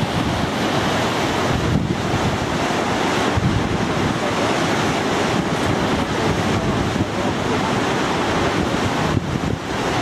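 Steady rush of a waterfall and the whitewater river below it, with wind buffeting the microphone.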